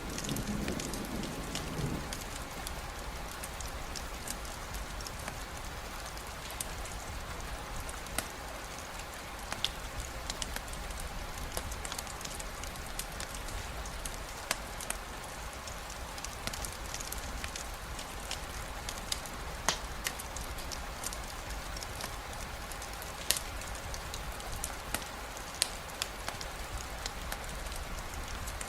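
Steady rainfall hissing evenly, with scattered sharp ticks of drops or crackles and a low rumble underneath. A deeper swell dies away in the first two seconds.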